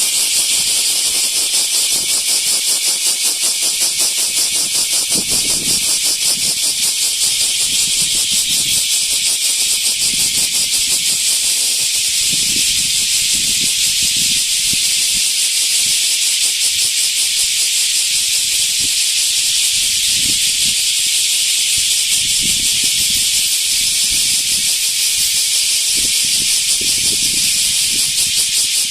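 Large brown cicada (aburazemi) singing: a loud, steady, rapidly pulsing buzz that goes on without a break.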